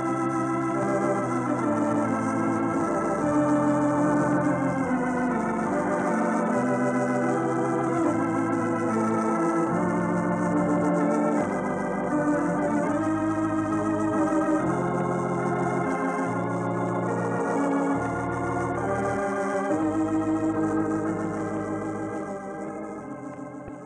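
Organ music closing the broadcast: held chords over a bass line that steps from note to note, fading out near the end.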